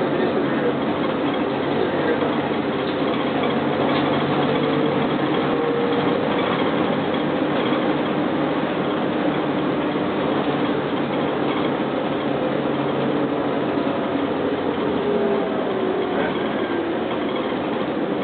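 Steady running noise inside a New Flyer D40LF diesel transit bus under way. Its Detroit Diesel Series 50 engine runs under road noise, with a faint whine that drifts up and down in pitch.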